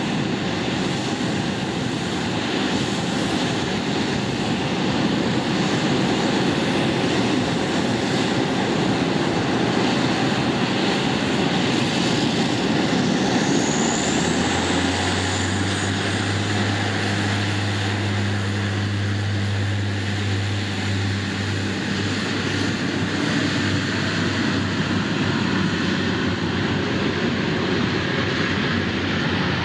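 De Havilland Canada Dash 8 Q400 (DHC-8-402) turboprop at take-off power: a loud, steady rush of engine and propeller noise. From about halfway through, a low steady propeller drone stands out for several seconds.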